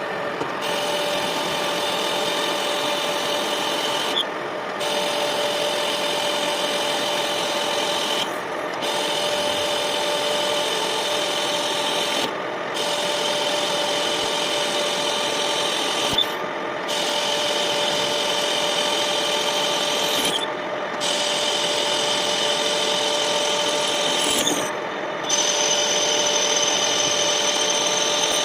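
Conventional metal lathe running with a steady hum, and a rasping cutting noise from the tool working thin-walled stock. The cutting noise breaks off briefly about every four seconds and then resumes.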